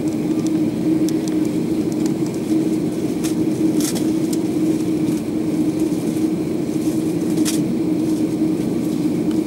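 Steady cabin noise of an Airbus A330-300 on the ground with its engines running: an even, low drone mixed with air-conditioning hiss, broken by a few faint clicks or rattles.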